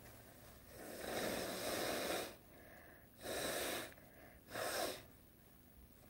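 A woman blowing her nose into a tissue: one long blow of about a second and a half, then two shorter blows.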